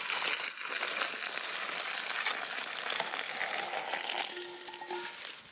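Backpacking stove burning under a pot of water: a steady hiss that eases slightly toward the end.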